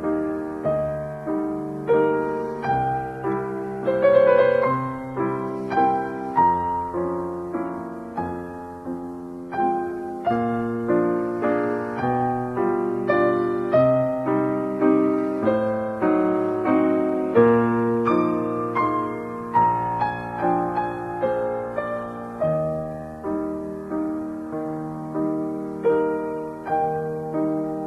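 Background piano music, a steady flow of struck notes and chords.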